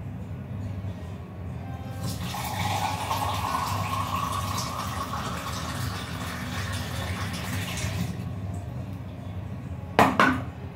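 Water running from a tap into a vessel for about six seconds, then stopping. About ten seconds in, a single sharp clink of a steel tumbler.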